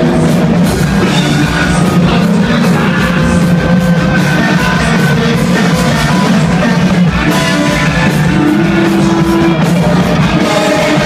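Rock band playing loud: electric guitar, bass guitar and drums, with a singer's voice over them.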